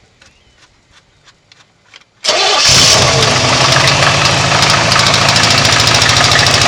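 A Chevy LT1 small-block V8 starts up about two seconds in, after a few faint clicks, and runs loudly at idle with a fast, even knock. The knock is from a bad connecting rod.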